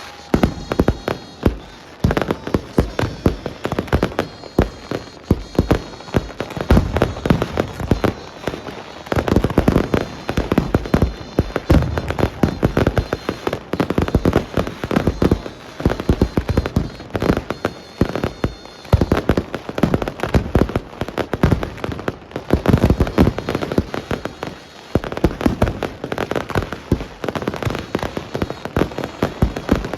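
Fireworks going off in a dense, continuous barrage of bangs and crackles, many reports a second, with a few brief lulls.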